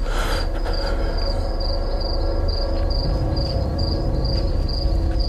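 Crickets chirping in an even pulse, about two chirps a second, over a low sustained drone. A short whooshing burst comes right at the start.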